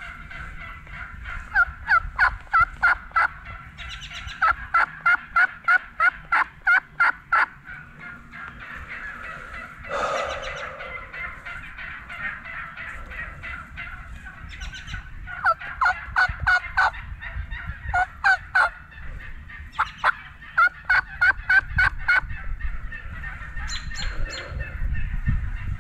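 Wild turkeys yelping: several runs of quick, evenly spaced yelps, about four a second, with a louder, rougher call about ten seconds in that may be a gobble.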